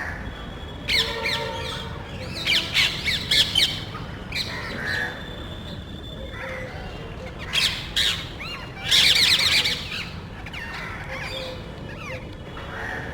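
A small group of parrots squawking loudly in harsh, scattered bursts, several calls overlapping, with the longest loud stretch about nine seconds in.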